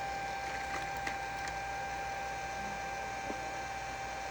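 Hot-air heating tool blowing steadily with a constant high whine, softening glue inside a phone, with a few faint ticks of tools on the phone in the first second or so.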